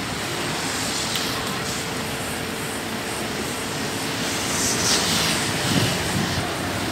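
Airman AX40 mini excavator's diesel engine running steadily, with a steady whine over the engine noise.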